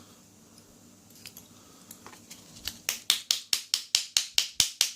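A quiet stretch, then from about halfway in a quick, even run of sharp clicks, about six a second, as small hard parts of a disassembled lock are worked by hand.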